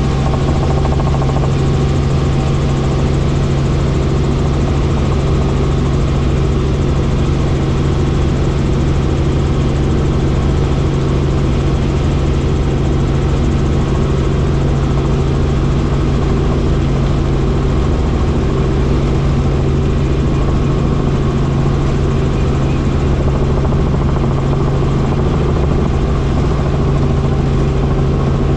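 Helicopter in steady flight: the engine and rotor make a loud, unchanging low drone with a strong steady hum.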